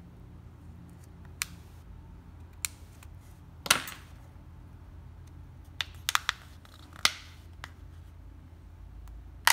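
Samsung Galaxy A12's plastic back cover being pried off by hand: a scattered series of sharp plastic clicks and snaps as its clips let go, the loudest a short crackle a little under four seconds in.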